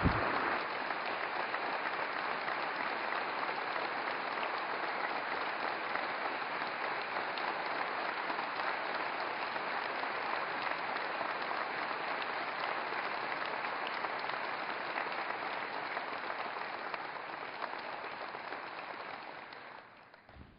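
Large audience applauding steadily; the applause thins out and dies away near the end.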